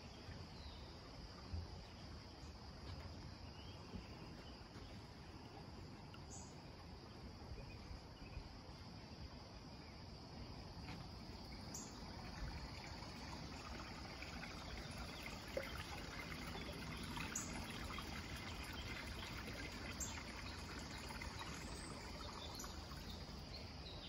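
Faint woodland ambience: a steady, high insect buzz, with a few short bird chirps scattered through.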